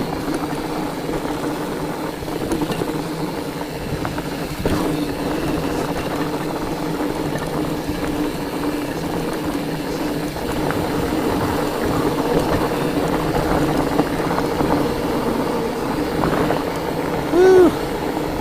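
Fat bike rolling along, its wide knobby tyres giving a steady hum over rough rolling noise. Near the end comes one short, loud squeal that rises and falls.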